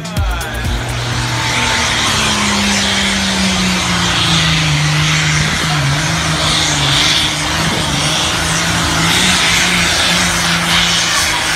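Competition pulling tractor's engine running hard during a pull, a loud steady engine note over heavy noise that settles slightly lower in pitch about four seconds in.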